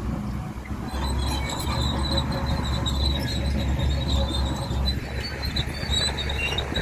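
Crawler bulldozer at work: its diesel engine running under load with a deep steady rumble, and a high, continuous squeal from the steel tracks.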